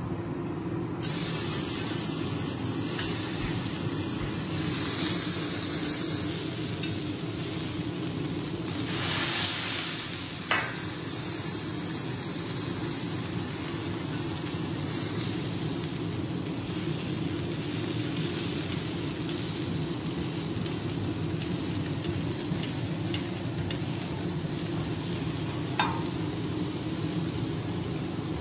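Beef steaks sizzling on a teppanyaki iron griddle: a steady frying hiss that swells briefly about a third of the way in. Two short metallic clinks from a cooking utensil on the hot plate, one just after the swell and one near the end.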